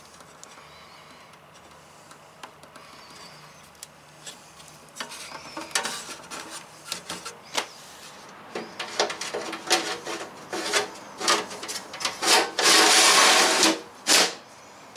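Clicks, knocks and rattles of hands working wiring and connectors in an aluminium diamond-plate battery box. Near the end comes a loud rasping scrape lasting over a second, then one sharp knock as the box lid is closed.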